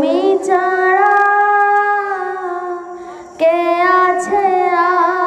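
A boy singing a Bangla nasheed unaccompanied into a microphone, holding long notes with vibrato in two phrases, with a short pause about two seconds in.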